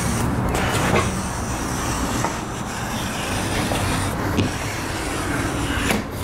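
Utility knife drawn along a sheet of Diamond Deck foam decking, cutting it with light scraping and a few faint clicks, over a steady low background rumble.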